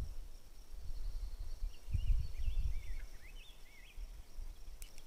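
Outdoor field ambience: wind rumbling on the microphone over a steady high insect drone. About two seconds in, a bird sings a short run of warbling, up-and-down notes, and there is a brief click near the end.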